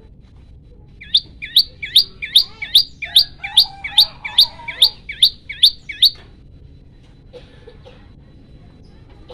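Common tailorbird calling a fast series of about thirteen loud, sharp, high notes, roughly two and a half a second. The calls start about a second in and stop about six seconds in.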